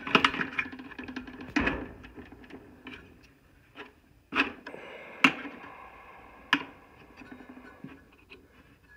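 Sharp metal clicks and knocks, about six spread over several seconds, as an RV furnace's combustion wheel is worked back and forth on its motor shaft. The wheel is stuck because its set screw is binding on the shaft.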